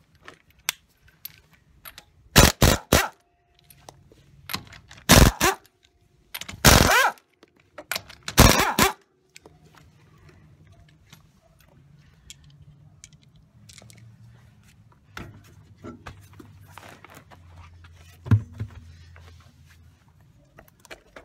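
Pneumatic impact wrench hammering in four short runs of about half a second each, breaking loose a car wheel's lug nuts. Small clinks and scrapes follow as the nuts and wheel are taken off.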